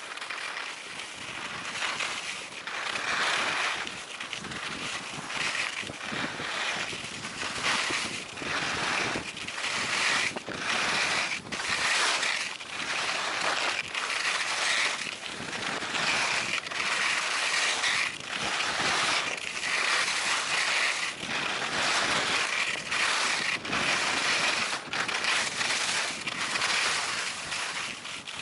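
Skis scraping and hissing over packed snow through a run of linked turns. The noise swells with each turn, about once a second.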